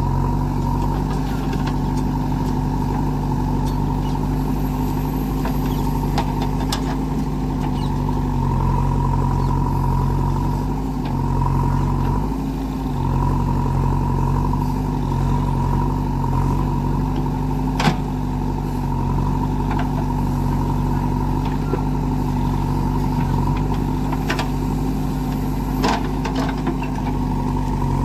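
JCB 3DX backhoe loader's diesel engine running under working load as the backhoe digs soil, its note shifting a little as the hydraulics work, with a steady whine over it. A few sharp clanks come in the second half.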